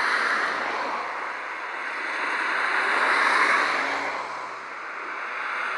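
Jet noise from the Snowbirds' formation of Canadair CT-114 Tutor jets, a steady rush that swells to its loudest about three and a half seconds in and eases off soon after.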